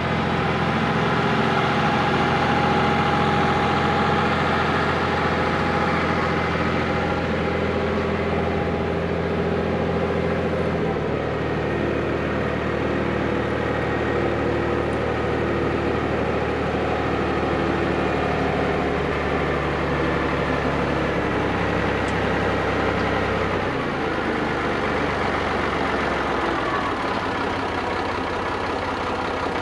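Engine running steadily at low speed. Its pitch drops a little about eleven seconds in and shifts again a couple of times near twenty-one and twenty-four seconds.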